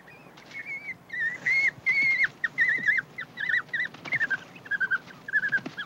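African wild dogs twittering: a rapid series of short, high, wavering squeals, a little lower toward the end, the bird-like distress and submission calls of a wild dog under attack from another.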